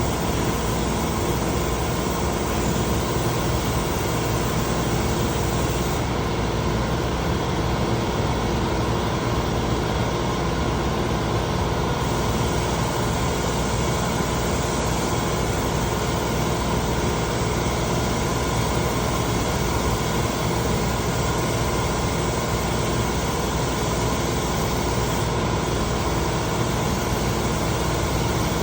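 Spray-finishing equipment running steadily: a motor hum with an even hiss of air throughout.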